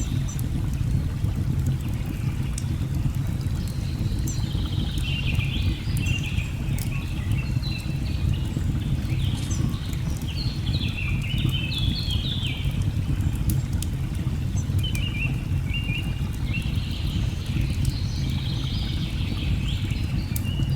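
Steady low rush of a waterfall with birds chirping and trilling in bursts over it, and scattered sharp crackles of a wood fire.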